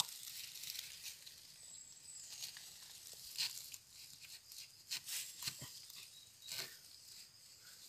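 Dry bamboo leaf litter crackling and rustling as a bamboo shoot is worked loose at the base of a bamboo clump, with a few short sharp cracks scattered through.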